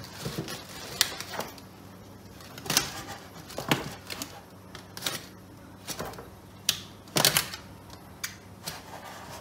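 Scissors snipping through the fabric filter sock and corrugated plastic drainage pipe, in a dozen or so sharp, irregular snips.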